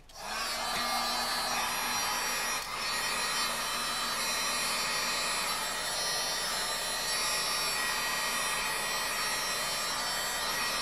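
Electric heat gun switched on and running steadily, a rush of blown air with a steady low hum, shrinking heat-shrink tubing over thermistor wires. It comes up to full strength within about half a second of starting.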